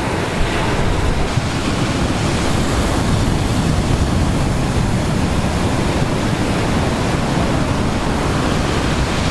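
Steady rush of sea surf breaking on a beach, with wind on the microphone.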